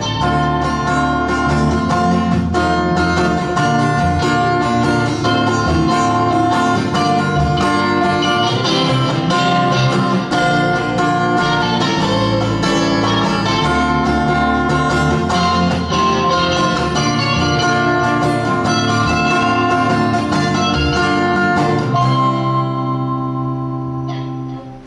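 Live acoustic guitar, electric guitar and electric bass playing an instrumental passage with no vocals. It ends on a held chord that rings and fades just before the end.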